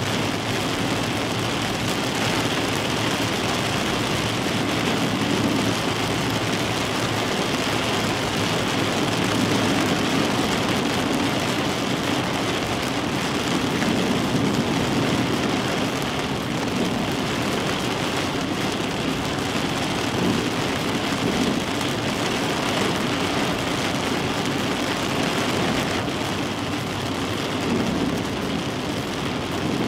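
Steady storm noise of heavy rain, a continuous rushing hiss with no breaks.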